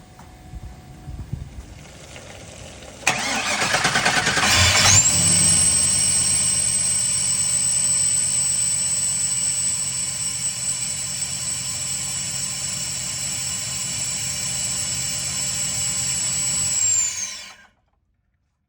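An LS-swapped V8 in a 1978 Chevrolet Caprice is started after its fuel pressure has bled down below 20 psi. It cranks for about two seconds, catches and settles into a steady idle with a high-pitched whine, until the sound cuts off suddenly near the end.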